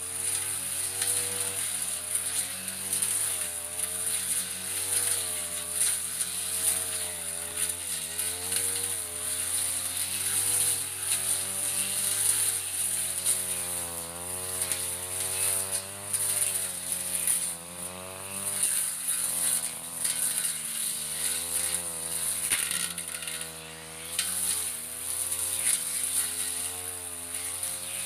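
Backpack brush cutter engine running under load, its speed rising and falling every second or two as the blade swings through thick grass.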